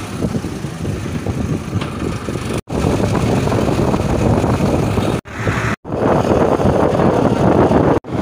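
A tractor's diesel engine running as the tractor drives along, mixed with wind rushing on the microphone. The sound drops out sharply three times and comes back louder near the end.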